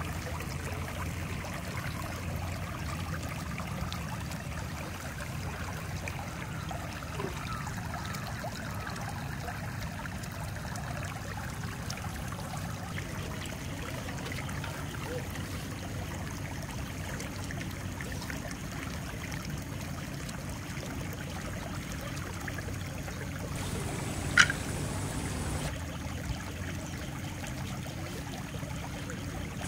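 Steady trickling and flowing water of a stream, with a few faint clicks and one sharp tap near the end.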